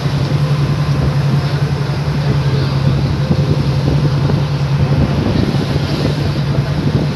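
Boat's engine running with a steady low drone, under the rush and splash of water churned along the hull.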